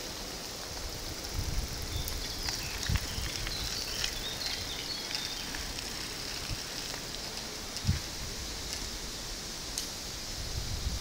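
Outdoor ambience: wind buffeting the microphone in occasional low thumps over a steady hiss, with faint high chirps in the first few seconds.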